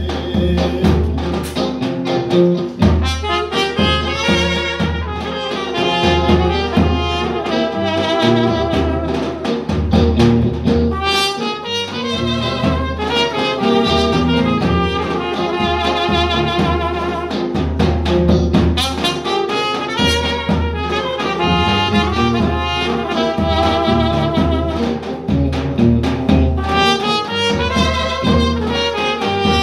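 Trumpet and saxophone playing a lively melody together over a steady bass and drum beat.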